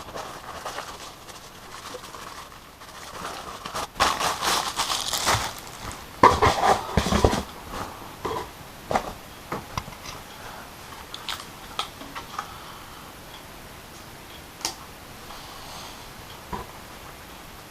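Power-supply packaging being handled while unboxing: plastic and cardboard rustling and crinkling in two loud bursts about four to seven and a half seconds in, then scattered clicks and taps.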